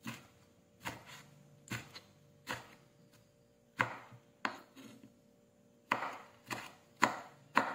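Kitchen knife slicing tomatoes on a wooden cutting board. The blade knocks the board about ten times at an uneven pace, with a short pause about three seconds in.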